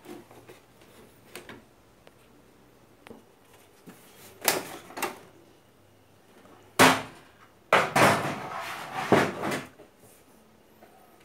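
Hard plastic knocking and scraping as a CRT TV's back cover and chassis are handled. There are a few light clicks, then a loud knock about halfway through, followed by a couple of seconds of loud scraping and rattling.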